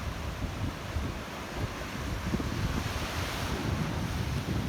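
Wind buffeting the microphone over the steady wash of sea surf breaking on the shore.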